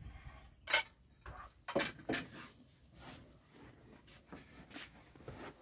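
Spoons and plates clattering and scraping as people eat: a sharp scrape about a second in, a few more close together around two seconds in, then softer clinks.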